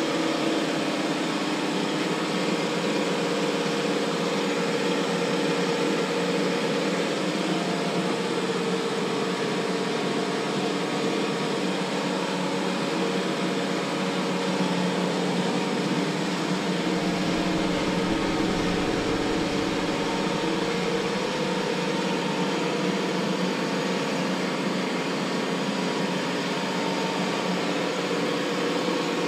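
Steady mechanical hum, like a fan or motor running, with a brief low rumble about two-thirds of the way through.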